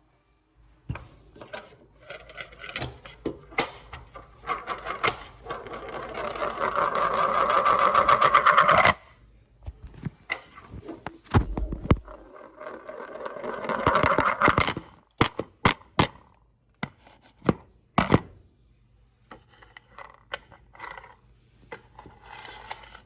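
Rapid, evenly spaced clicking that grows steadily louder and then cuts off suddenly, with a second, shorter run a few seconds later. Scattered single clicks and knocks fall before and after.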